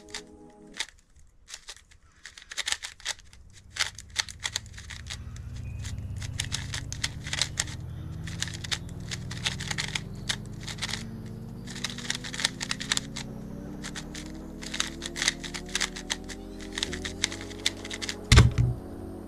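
Rapid plastic clicking and clacking of a 3x3 speed cube, an Xman Tornado V3, as its layers are turned quickly during a solve. Background music runs underneath with a long tone that rises slowly in pitch, and a couple of heavy thumps come near the end.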